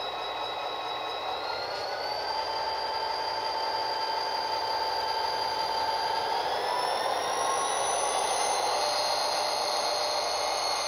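HO scale model SD40-2's Econami sound decoder playing an EMD diesel engine sound through the locomotive's small onboard speaker, revving up as the model accelerates away. The engine note and a whine step up in pitch about two seconds in and rise again over roughly the sixth to eighth second.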